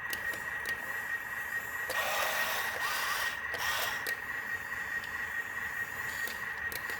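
Small electric motor and plastic gears of an RC toy truck running with a steady high whine, with scattered clicks and two short louder grinding spells about two and three and a half seconds in.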